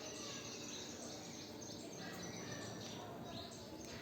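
Cockatiel chirping and chattering softly: a run of short high calls, several of them sweeping downward, over a faint steady background hiss.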